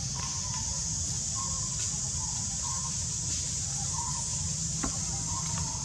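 Outdoor background: a steady high-pitched drone with a low rumble beneath, and faint short calls recurring about once a second.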